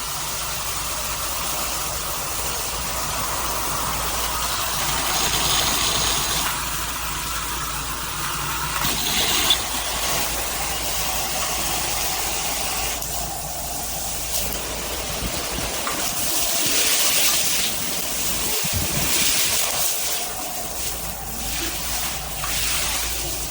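Shower head spraying water, a steady hiss of running water that grows and fades in strength now and then.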